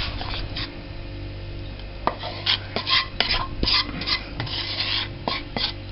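Spoon stirring and scraping a thick, sticky burfi mixture in a pan, with quick, irregular knocks and scrapes from about two seconds in.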